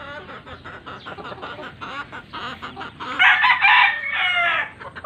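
A rooster crows once, loudly, about three seconds in, over the soft clucking of a flock of chickens.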